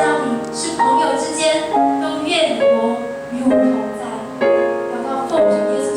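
Music: a piano playing a slow run of chords, each struck and left to ring, a new one about every second.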